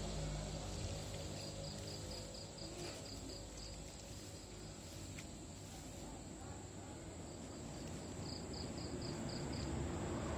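Cricket chirping: a run of short, evenly spaced high chirps, about four a second, then a shorter run near the end.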